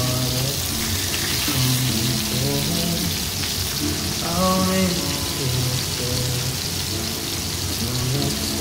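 Rohu fish pieces shallow-frying in hot oil in a pan, a steady sizzle, with background music playing over it.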